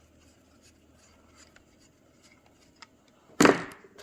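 Faint small clicks and handling of small parts while a washer is fitted onto a handheld radio's antenna connector, then a short, loud handling noise about three and a half seconds in.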